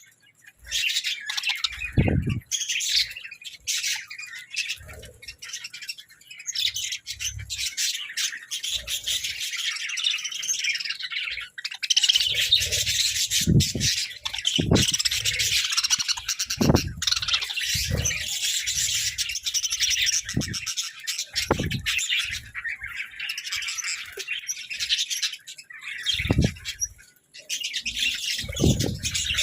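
A flock of budgerigars chirping and chattering without a break, many calls overlapping, with scattered short dull knocks.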